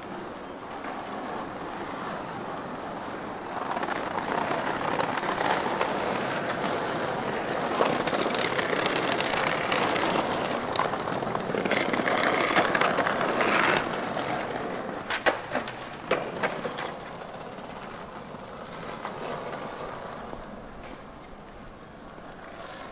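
Outdoor street noise: a loud rushing sound swells over several seconds and then fades away, like something passing by, with a few sharp clacks as it dies down.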